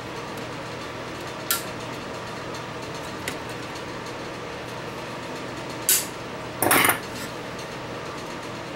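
Small metal hand tools clicking and clinking against the wiring and chassis of a tube radio. There are sharp clicks about a second and a half in and again near six seconds, then a longer scraping clatter just after. A steady hum sits underneath throughout.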